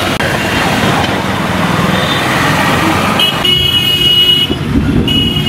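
Road traffic passing on a wet street, with motorcycles and auto-rickshaws going by. A vehicle horn sounds for about a second a little over three seconds in, and briefly again near the end.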